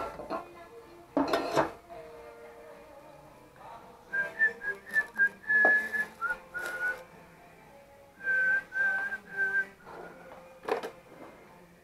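A person whistling short notes at a steady high pitch, in two groups, with a few sharp knocks between them.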